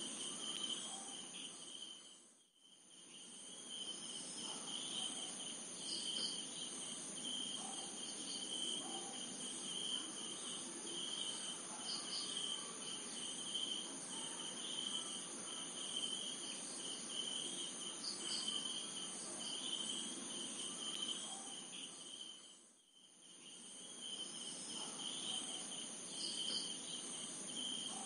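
Night insects chirping in a steady high-pitched chorus, dipping briefly in level twice, about two seconds in and again near the end.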